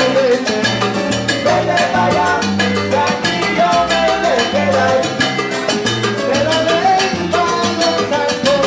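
Salsa orchestra playing live: a busy percussion groove of congas, bongo, timbales and maracas over piano and bass, with a lead singer and chorus singing.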